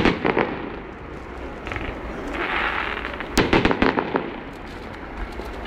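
Fireworks bursting: a loud bang at the start followed by a quick run of cracks, a hissing crackle about two and a half seconds in, then another sharp bang with a rapid string of cracks.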